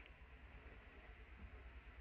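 Near silence: a faint steady hiss with a low rumble underneath.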